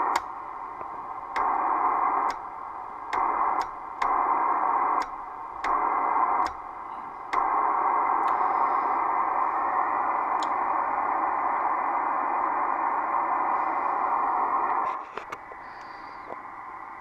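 Kenwood TS-700SP receiver's white noise from its speaker, stepping between loud and quieter several times in the first seven seconds with a sharp click at each change as the DX preamplifier relay is switched in and out. The hiss then stays loud and steady and drops back about fifteen seconds in. The hiss cutting in and out shows the preamp relay's contacts, suspected of being bad, making and breaking the signal path.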